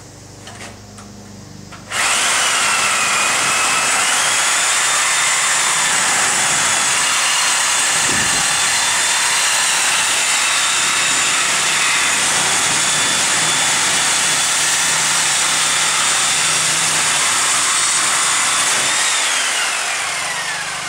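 Electric power cutting tool cutting through the bicycle frame tubes. The motor starts about two seconds in, runs steadily with a high whine, and winds down with a falling whine near the end.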